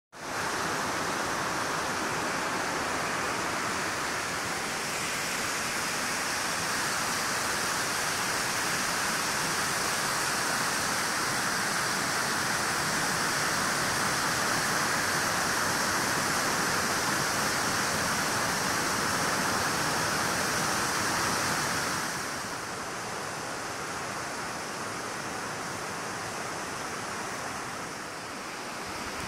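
Swollen Parramatta River floodwater rushing steadily over the weir and washing across the flooded wharf, a continuous hiss and rush of falling water. It becomes a little quieter about three-quarters of the way through.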